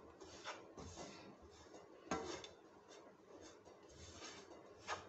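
Wooden spatula scraping and stirring a dry, crumbly mix of bread and milk powder in a nonstick frying pan: faint, irregular scraping strokes, the sharpest about two seconds in and near the end.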